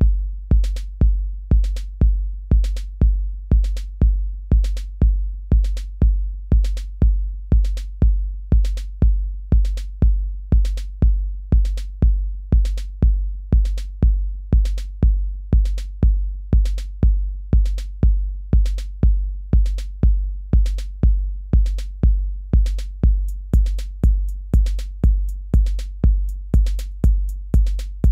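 Patterning drum machine app playing a looped electronic beat from its 1982 kit: a deep kick about twice a second with short clicky percussion hits on the same grid. Near the end a quicker run of high ticks joins the loop.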